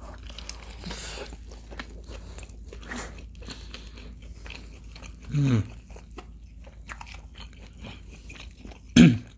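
Close-miked chewing and crunching of crispy fried fast food, with many small crackles as it is bitten and chewed. A short vocal sound about five seconds in and another near the end.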